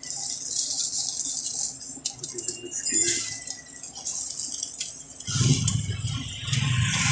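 A metal spatula clattering and scraping on a flat street-food griddle, with food sizzling on the hot plate. A low rumble comes in about five seconds in.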